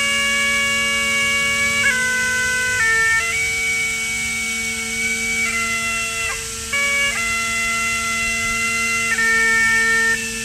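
Bagpipes playing a slow melody of held notes over a steady, unbroken drone, with quick grace notes flicking between the melody notes.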